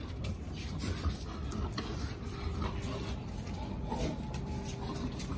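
A rubber tyre scraping and knocking on a stone-chip floor as a German Shepherd grabs it in his mouth and carries it off. There are a few sharp clicks over a steady low rumble.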